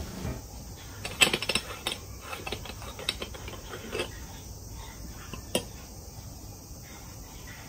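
Scattered light clicks and knocks of a metal moka pot being picked up, gripped and handled on a wooden board, with a sharper click late on.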